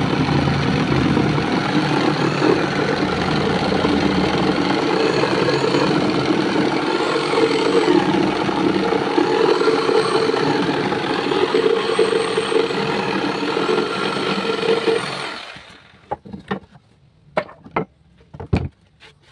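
Corded jigsaw cutting a curve through a wooden board, running steadily for about fifteen seconds and then winding down. A few sharp knocks follow near the end.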